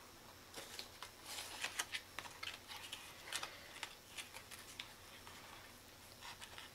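Faint rustling and light clicks of cardstock as hands open and handle the folded flaps of a handmade paper explosion box, thinning out near the end.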